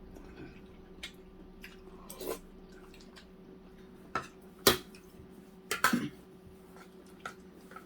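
Someone eating at the table: wet chewing and mouth sounds with scattered short sharp clicks and taps, the loudest just before the middle and a cluster about six seconds in. A faint steady hum runs underneath.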